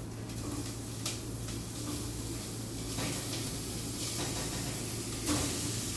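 Ground beef sizzling steadily as it is added a little at a time to a hot stainless steel pot of butter and onions, with a few light clicks.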